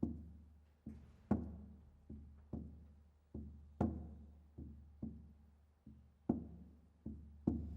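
A low-pitched drum struck in a steady long–short rhythm, about two strokes a second, each stroke ringing low and dying away. The accent strokes are the loudest.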